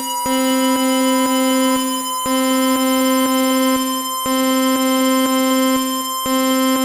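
Synthesized emergency-alert alarm tone: a steady buzzy tone with a higher tone over it, clicking about twice a second and repeating in two-second cycles.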